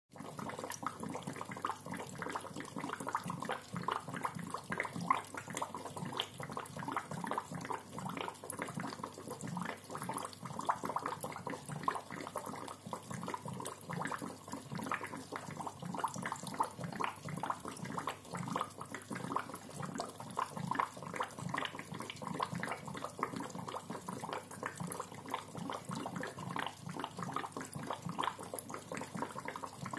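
Aquarium bubbler gurgling in the tank water: a steady, irregular stream of bubbles.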